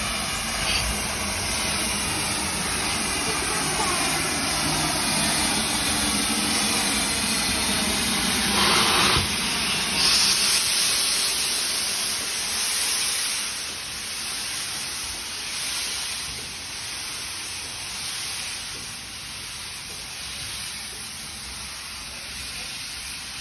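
Steam tank locomotive moving through a station, its hissing steam running steadily, with a loud burst of steam hiss about nine to ten seconds in; the sound then fades as the engine draws away.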